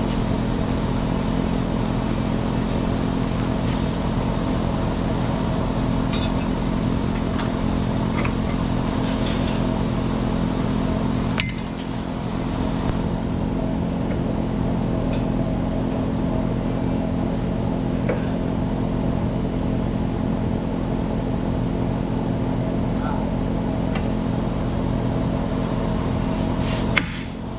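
An engine running steadily at idle, with a brief break about a third of the way in and another near the end.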